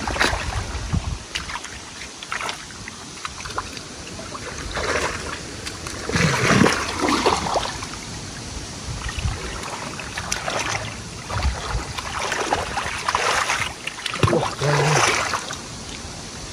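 Water sloshing and splashing in several irregular bursts, the loudest around the middle and again near the end.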